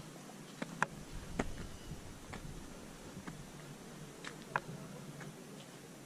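Footsteps on stone steps and gravel: faint, irregular sharp ticks and taps, roughly one a second, over a low steady background hum.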